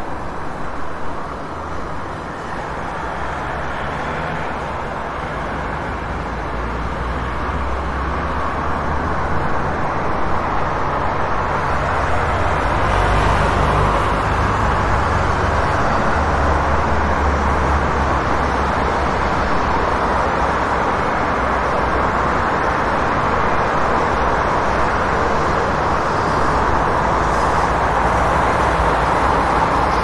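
City street traffic: a continuous wash of passing cars with a low engine rumble, building over the first dozen seconds and then holding steady.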